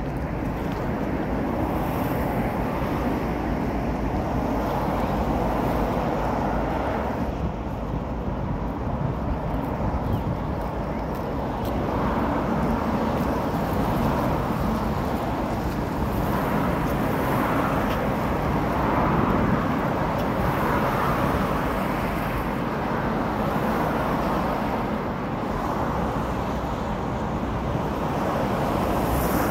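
City traffic noise: cars passing one after another, the sound swelling and fading every few seconds over a steady rumble.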